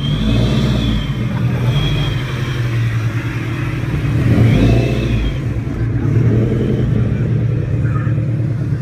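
Loud exhaust of a lowered widebody Toyota 86-platform coupe driving slowly past. Its rumble swells as it passes closest, about four to five seconds in.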